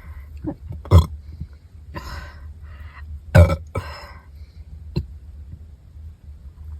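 A woman burping from a full stomach: two loud, short burps about one and three and a half seconds in, a smaller one near five seconds, with breathy exhales between them.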